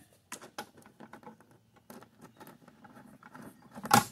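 Light, irregular clicks and scratches from hands fitting a washer, lock washer and nut onto a bolt through a metal brace and plastic wheelbarrow tray, with one sharper click near the end.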